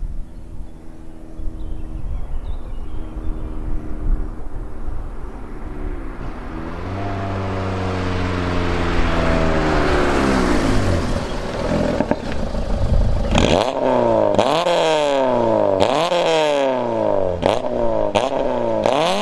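Peugeot 206 with an aftermarket Magnaflow exhaust coming closer, its engine note falling as it slows. About two-thirds of the way through, the engine is revved in quick blips about once a second, each rising sharply and dying away, with sharp pops from the exhaust between them.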